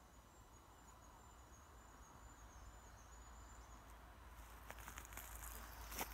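Quiet woodland ambience. A faint, thin, high wavering call sounds for the first few seconds, then scattered rustling and clicks follow, with one sharp click near the end.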